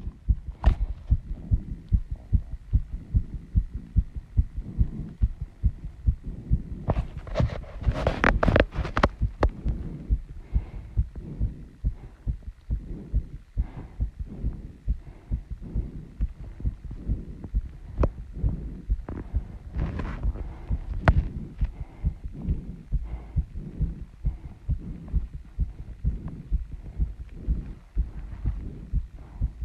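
A woman's heartbeat heard close up, a fast, regular train of low thumps after running and squats. A louder noisy stretch comes about seven to nine seconds in.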